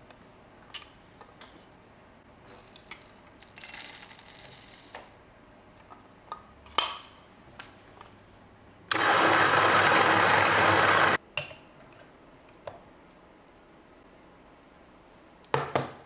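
Niche Zero conical burr coffee grinder grinding beans for about two seconds, a loud steady grinding that cuts off suddenly. Before it come light clicks and a short rattle of handling the grinder's lid and beans, and near the end a quick run of metallic clinks.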